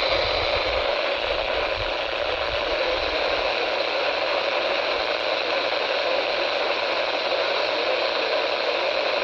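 Steady hiss of radio static from a weather-radio receiver on a weak signal, with the broadcast voice lost in the noise. A low rumble dies away about three and a half seconds in.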